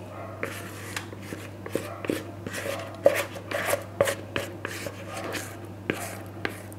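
Baking paper rustling and crinkling as it is fitted into a tart tin, with irregular light knocks and taps.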